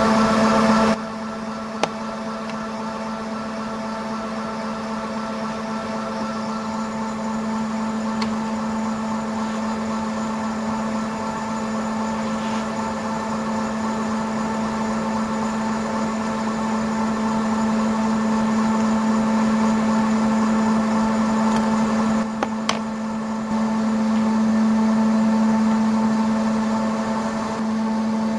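Five-axis dental milling machine's spindle running at a steady speed while a small end mill cuts a zirconia disc: a constant hum with several steady high tones over a hiss.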